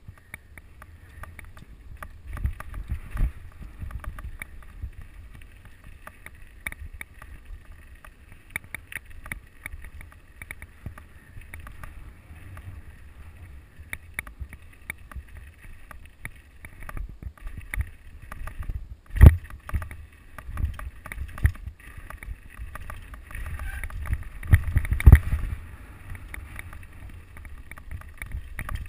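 Mountain bike riding down a rocky gravel singletrack: a steady rumble of tyres and wind on the microphone, with constant rattling and clatter of the bike over stones. A sharp loud knock comes about 19 seconds in, and the clatter grows rougher near the end.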